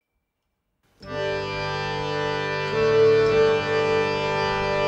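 Background music: silence for about a second, then a sustained chord of steady held notes that grows louder about two seconds in.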